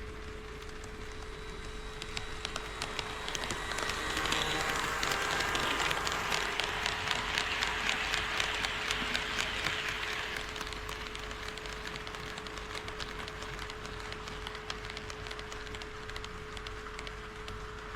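HO scale model train running past on the track, its wheels clicking quickly over the rail joints, growing louder about four seconds in and fading away after about ten seconds. A steady hum sounds underneath.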